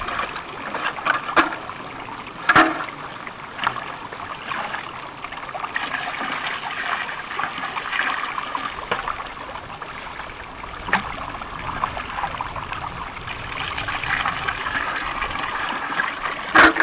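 Water poured from a plastic five-gallon bucket into another bucket, splashing and trickling steadily as gold-sluice concentrate is rinsed into it. A few sharp knocks break in, the loudest about two and a half seconds in and right at the end.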